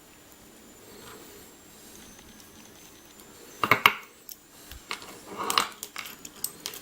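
Small metal parts of a disassembled lock cylinder clinking and clattering as they are handled. There are a few sharp clicks about halfway in and more clatter near the end.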